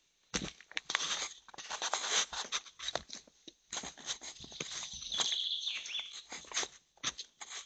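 Footsteps crunching and scuffing on a stony, dirt forest path strewn with twigs, an uneven run of clicks and scrapes with a few short pauses.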